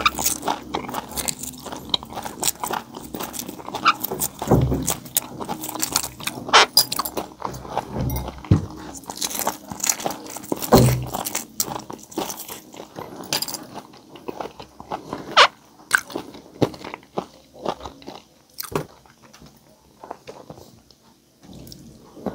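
A man biting and chewing crispy pata (deep-fried pork leg) and boiled egg close to a lapel microphone: crunches and mouth smacks with many sharp clicks. The heaviest bites come about four and a half and eleven seconds in, and the chewing grows quieter near the end.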